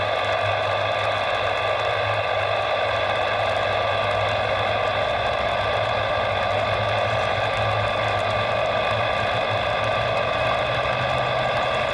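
Airbus A320's CFM56 turbofan engines at take-off power, a steady jet roar with a whining tone, as the airliner accelerates down a rain-soaked runway.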